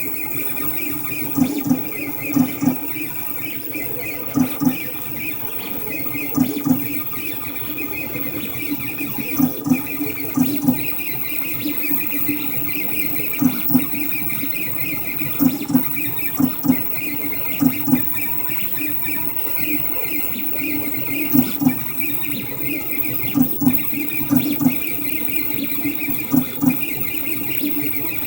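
3D printer running, its stepper motors whining in short, irregular tones as the print head moves, over a steady high-pitched hum.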